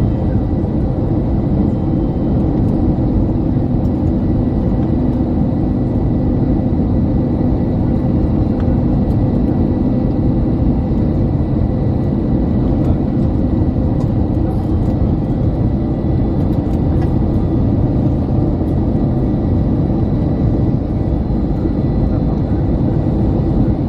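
Steady jet airliner cabin noise: a low rumble of engines and rushing air, with a faint steady high whine.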